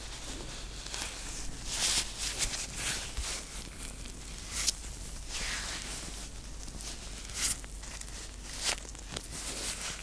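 White rubber gloves rubbing and crinkling against each other close to the microphone, in irregular swishes about once a second.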